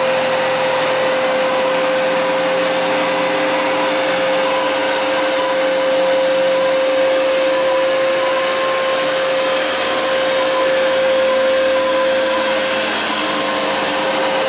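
Fantom Cyclone XT upright vacuum cleaner running steadily as it is pushed over carpet, picking up cat litter. Its motor holds one steady pitch over an even rush of airflow.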